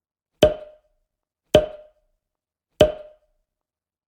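Three sharp knocks, a little over a second apart, each with a brief hollow wooden ring that dies away quickly, with dead silence between them.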